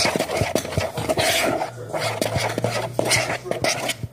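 A spoon stirring a thick slime mix of glue, shaving cream and pink colouring in a bowl: repeated swishing strokes with light clicks of the spoon against the bowl.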